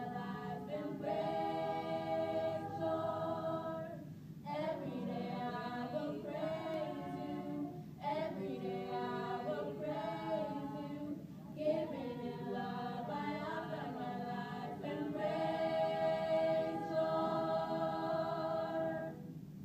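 Small choir singing a cappella in harmony, mixing moving phrases with long held chords; the final chord ends near the end.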